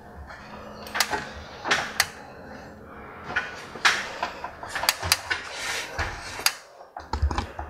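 Footsteps and knocks of someone climbing down steps with metal treads. The clicks and clatters come unevenly, with a few heavier thuds near the end as the feet land.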